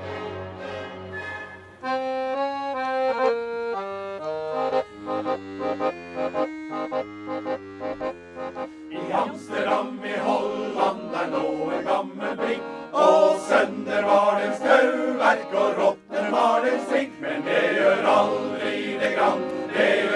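An accordion plays a stepped melody. About nine seconds in, a male choir comes in singing in Norwegian, with the accordion accompanying.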